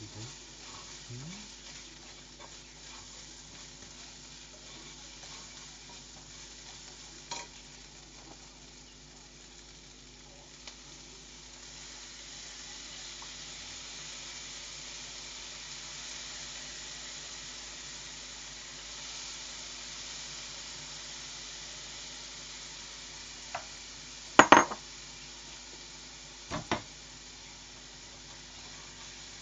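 Food sizzling in a frying pan, the sizzle growing louder about twelve seconds in. There are a few sharp clanks of a utensil or pan near the end.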